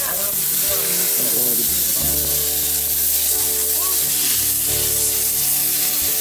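Meat frying in a large pan, sizzling steadily.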